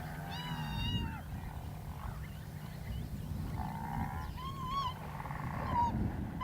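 An animal's high, arching calls, each under a second long, repeated four or five times, over a low rumble.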